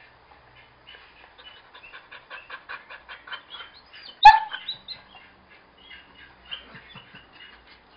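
Dogs: a quick run of short, high-pitched yips, then one loud sharp bark about four seconds in, followed by scattered squeaky whines.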